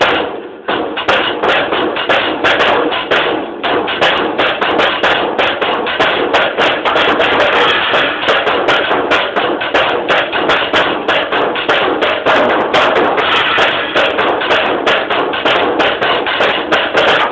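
Drum kit played in a fast, busy solo with rapid strokes throughout, recorded on a mobile phone.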